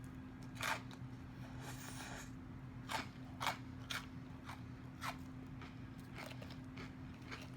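Close-up chewing of a Caesar salad: a scattering of short, sharp crunches, about ten in all, spaced irregularly over a faint steady low hum.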